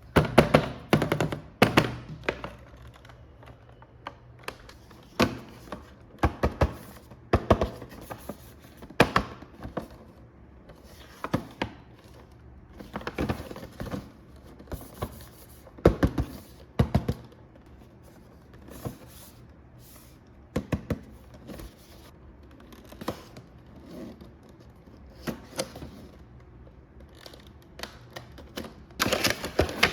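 Irregular clicks, taps and knocks of hard objects being handled, coming in short clusters with gaps between. The loudest come about a second in and again just before the end.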